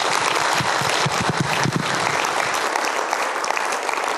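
Audience applauding: many people clapping at once, a dense steady patter that holds through to the end.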